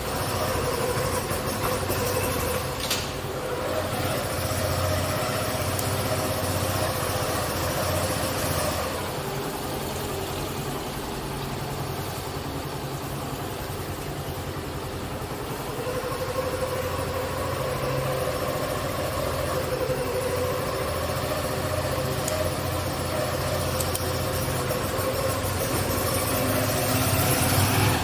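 Motorcycle engine running as the bike is ridden slowly through an enclosed concrete car park; the engine eases off about a third of the way through and picks up again later.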